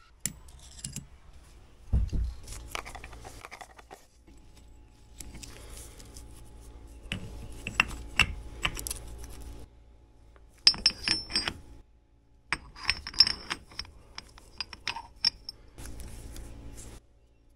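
Steel differential locker parts clicking and clinking against each other and the cast-iron Dana 44 carrier as they are fitted by hand. The handling comes as scattered clicks, with two quick runs of bright metallic tinks about two-thirds of the way through.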